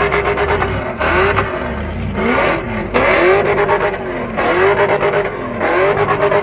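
Burnout car's V8 engine revving hard over and over, its pitch rising and falling roughly every second and a half.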